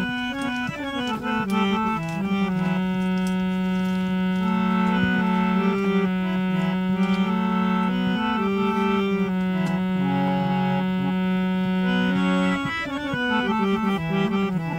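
Harmonium playing a slow melody, mostly long held reedy notes, with short runs of changing notes at the start and again near the end.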